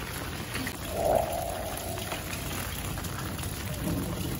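Steady rain falling on a wet concrete rooftop and its puddles, with a short, louder pitched sound about a second in.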